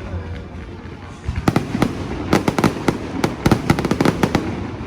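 Aerial fireworks bursting: a rapid, irregular run of many sharp cracks and bangs, starting about a second and a half in and dying away near the end.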